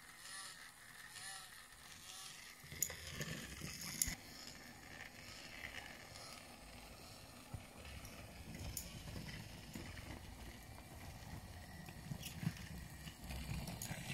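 Battery-powered Brio toy trains running on wooden track: a faint motor whir and wheels rumbling over the wood, louder from about three seconds in, with a few sharp clicks.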